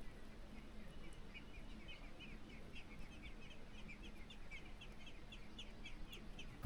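A small bird calling: a rapid, even series of short high chirps, about three to four a second, starting about a second in, faint over quiet outdoor background.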